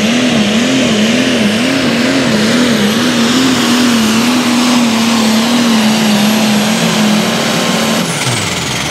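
International super stock pulling tractor's diesel engine running flat out under load. Its pitch wobbles up and down during the first few seconds, then holds steady. Near the end the engine note and a high whine both drop away as the throttle comes off at the end of the pull.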